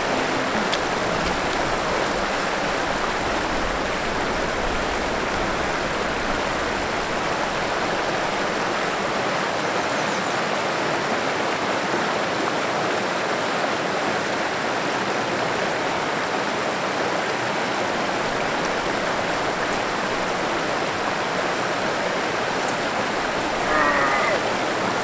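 Steady rush of brook water running into a pool. Near the end, a brief higher-pitched sound rises over it for about a second.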